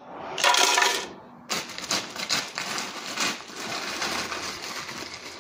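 Dates and ice cubes clattering and rattling in a plastic Ninja blender pitcher as the dates are dropped in, with a brief loud burst about half a second in.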